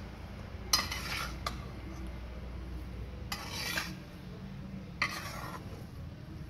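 Metal spatula scraping and clinking against a stainless steel pan while stirring fried rice, in three separate scrapes with a few sharp clinks.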